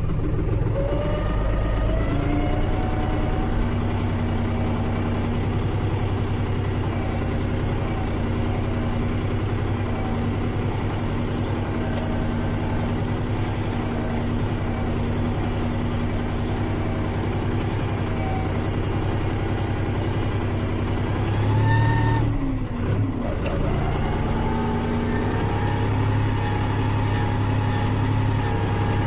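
SAME Explorer 50 tractor's diesel engine running steadily under light load as the tractor moves slowly in gear, heard from the cab; the engine is still cold. About three quarters of the way through, the engine note swells, dips briefly and then settles a little higher.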